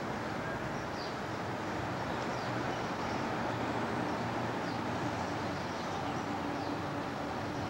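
A steady outdoor background noise, with small birds giving short high chirps about once a second.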